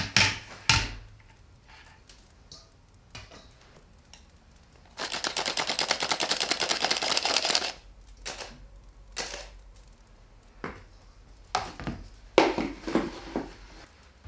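Knife chopping fast on a cutting board: an even run of many sharp chops a second for about three seconds, with scattered knocks and clatter of kitchen work before and after.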